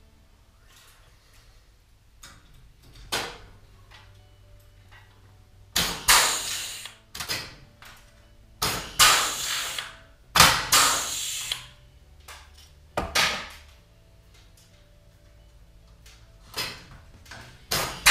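Pneumatic 3/16-inch rivet gun setting rivets in an aluminium frame: a series of short, sharp bursts of air hiss and snap, about ten of them at uneven gaps of a second or more.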